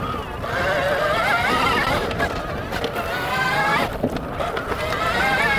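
Sur-Ron Storm Bee electric motocross bike being ridden on dirt: the electric motor's whine rises and falls in pitch with the throttle over tyre and ground noise. It eases off briefly just before four seconds in, then picks up again.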